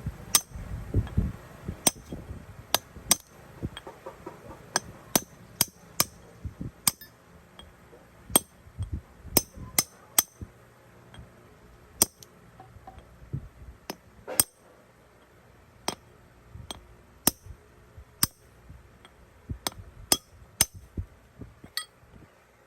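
Irregular sharp metallic clinks and knocks, metal tools and parts striking one another, spaced unevenly about once or twice a second. There is a low rumble in the first couple of seconds.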